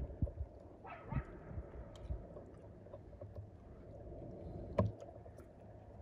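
Small waves lapping and sloshing at the riverbank, with wind thumping on the microphone. There is a short pitched call about a second in and a sharp click near five seconds.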